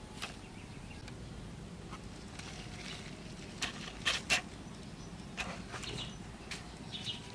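Hands handling fresh herb and leaf greens on a woven bamboo tray: soft rustling with a scattering of short sharp clicks, the loudest two close together about four seconds in. Faint bird chirps in the background.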